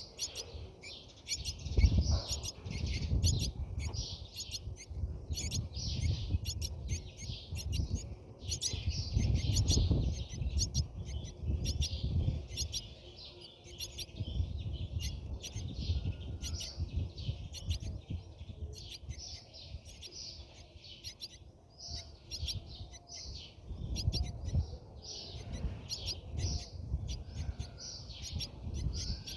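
Brahminy starlings chirping in a dense, continuous stream of high calls. A low rumble runs underneath and swells now and then.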